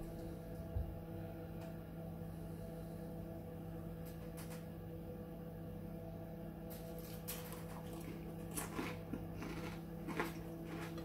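A person eating: chewing and small mouth sounds with short clicks of a fork on the plate, coming more often in the second half, over a steady low hum.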